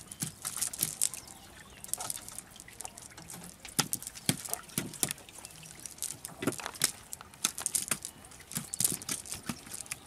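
Wet nylon cast net being handled as fish are picked out of its mesh: irregular rustling, light wet slaps and clicks, with a little water trickling.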